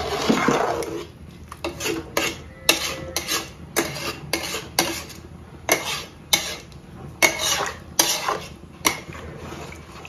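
Flat wooden spatula stirring a thin, watery curry in an aluminium pot, knocking and scraping against the pot's sides and bottom about twice a second.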